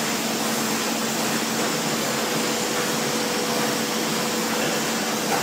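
Foliant roll laminating machine running: a steady, even rush of machine noise with a faint steady hum under it.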